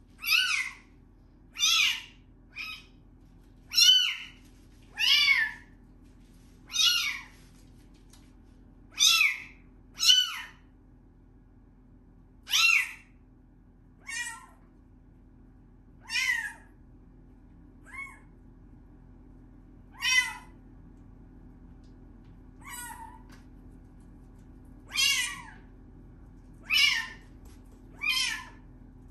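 Young kitten meowing over and over: high calls that fall in pitch, roughly one every one to two seconds.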